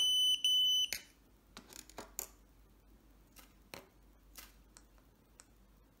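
Pandora Multibrand 605 alarm tester beeping twice, a high steady tone, short then longer. This is typical of the tester taking in a car key fob's remote signal while recording it by hand. Faint clicks of small plastic buttons being pressed follow.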